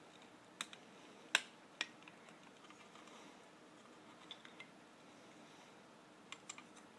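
Light plastic clicks and taps from a plug tip being fitted onto a small charger power adapter: three sharp clicks in the first two seconds, then a few faint ticks later on, over low room hiss.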